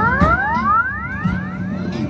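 Monster Drop Extreme arcade machine playing its electronic sound effect: a rapid run of overlapping rising sweeps, each climbing steeply in pitch, thinning out and stopping near the end, over a steady low arcade din.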